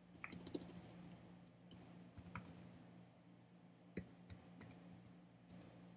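Typing on a computer keyboard: keystrokes in quick irregular runs with single clicks between, over a faint steady low hum.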